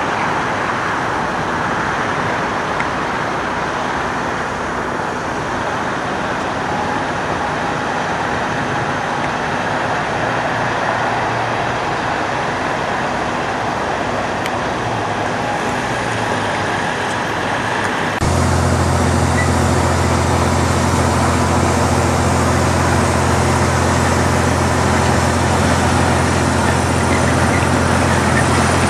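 Diesel semi trucks running. First comes a steady wash of engine and road noise as a long-hood Kenworth hauling a livestock trailer moves past. Then, after an abrupt change about two thirds through, a Kenworth T680 runs close by with a loud, steady low engine drone.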